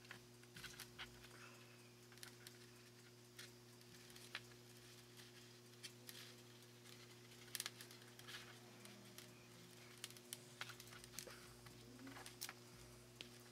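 Near silence: faint scattered clicks and light taps of thin wires, small switches and plastic connectors being handled and set down on a cutting mat, over a steady low hum. A few clicks come close together a little past the middle.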